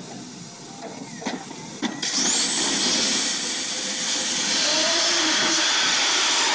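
Boeing 747-400 upper-deck emergency escape slide being deployed in a test: two short knocks, then about two seconds in a sudden loud hissing rush with a high whistle that rises and holds as the inflation system blows up the slide.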